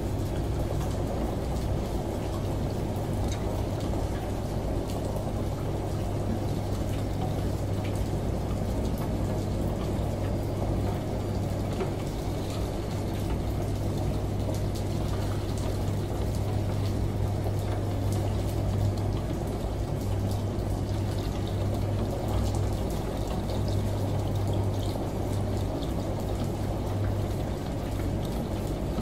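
Shower water running steadily over the low, steady hum of a washing machine, with a faint patter of drops.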